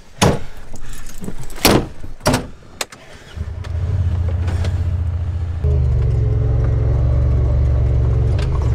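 Honda side-by-side UTV: several sharp knocks and clatters as riders climb aboard, then its engine runs steadily from about three and a half seconds in, getting louder about two seconds later as the machine pulls away down the trail.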